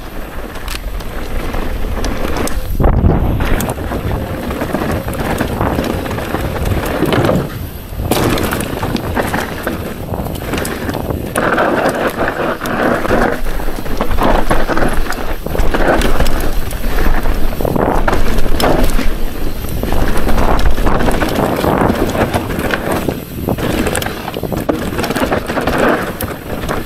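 Rocky Mountain Altitude mountain bike descending a dirt singletrack: tyres rumbling over dirt and roots, with a steady run of knocks and rattles from the chain, suspension and frame over the bumps.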